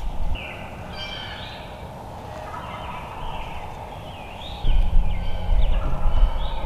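Wild turkeys gobbling, several rattling calls in quick succession and overlapping, from more than one bird. A loud low rumble comes in under them about two-thirds of the way through.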